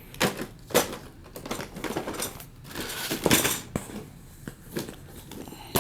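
A book being handled and leafed through: rustling page turns with several light clicks and knocks.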